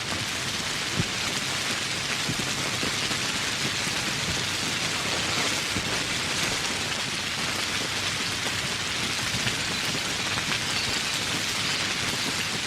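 Steady heavy rain falling on foliage and surfaces, a dense even hiss with individual drops pattering, one sharper drop hit about a second in.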